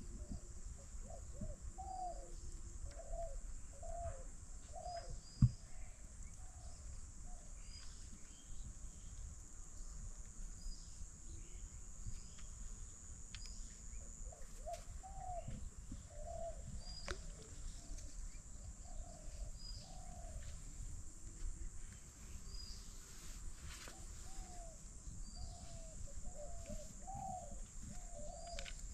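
Doves cooing in long series of short, low, repeated notes, with a gap of several seconds midway, while smaller birds chirp faintly and higher. A single sharp knock stands out about five seconds in.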